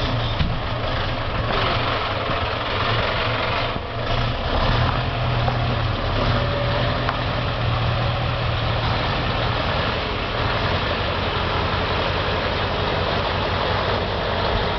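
Scania 141's V8 diesel engine running at low revs, steady throughout, changing note and getting a little louder about four seconds in as the tanker truck moves off.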